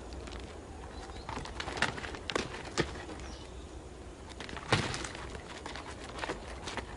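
Ibex hooves knocking and clicking on rock, a handful of separate sharp strikes with the loudest about two thirds of the way in, over a faint low rumble.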